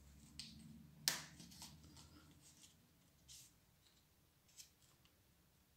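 Faint clicks and light scraping of a small metal retaining clip being pushed back into the plastic end of a Nilfisk G3 pressure-washer lance, with one sharper click about a second in.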